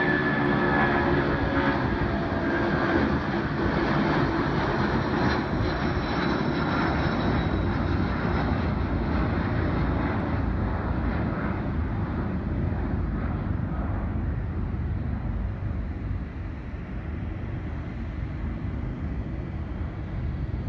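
Boeing 767-300ER's twin Rolls-Royce RB211 turbofans at takeoff power as the airliner climbs out: a steady jet roar with a high whining tone that slides slightly lower in the first few seconds. The sound fades gradually as the aircraft climbs away.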